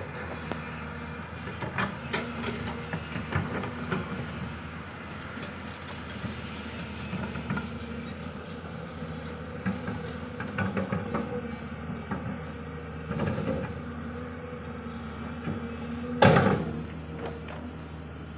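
Diesel engines of crawler excavators running steadily under work, with irregular metal clanks and knocks from the working machines; the loudest, a sharp bang, comes about sixteen seconds in.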